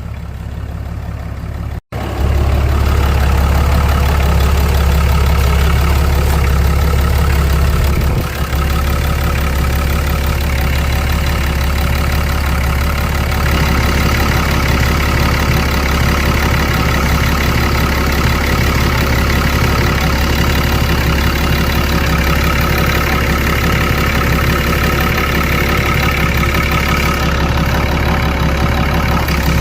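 A 2017 Ram 3500 pickup's engine idling steadily. The sound breaks off for an instant about two seconds in.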